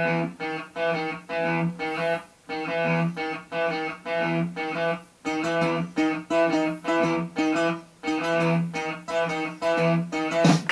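Background music: a plucked guitar playing a quick, repeating rhythmic figure of short notes.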